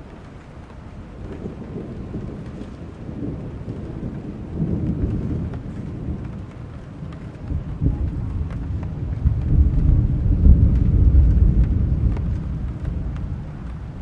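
Thunderstorm: steady rain with a long, deep roll of thunder that builds from about four seconds in, is loudest past the middle, then dies away.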